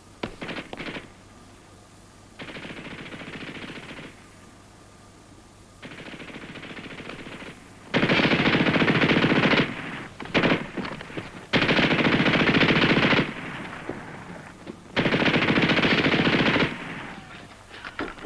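Machine gun firing in long bursts of rapid fire: two fainter bursts, then three louder bursts of about a second and a half each, with a few short shots in between.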